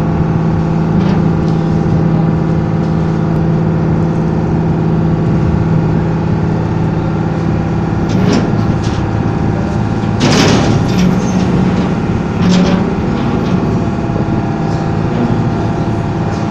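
Boat engine running steadily at a constant pitch, heard on board the moving boat, with a brief louder burst of noise about ten seconds in.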